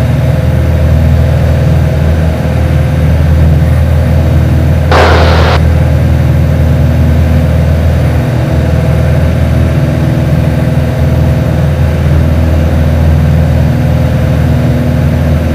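Cessna 182's piston engine and propeller droning steadily at climb power after takeoff, heard in the cabin. A short burst of hiss about five seconds in.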